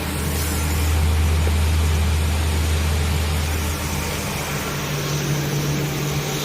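Biomass burner running with its blower: a steady low hum over a rushing noise, the hum stepping up in pitch about four seconds in.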